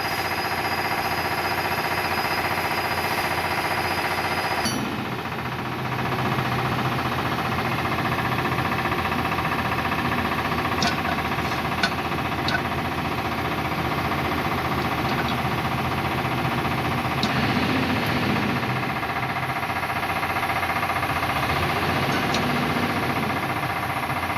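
Lathe running steadily, a dense mechanical hum made of many steady tones, with a few sharp metallic ticks over it. The sound dips briefly and changes at about five seconds, then carries on.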